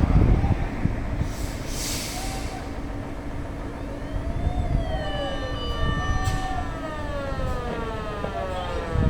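Fire engine siren wailing, its pitch rising and then falling in long slow sweeps, starting a few seconds in over a heavy vehicle rumble. A short hiss comes about two seconds in, and loud knocks come at the start and near the end.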